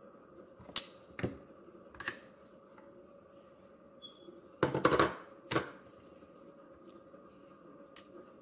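A few sharp clicks and knocks of metal kitchen tongs and a ceramic plate against a wooden cutting board, the loudest clatter about halfway through, over a faint steady hum.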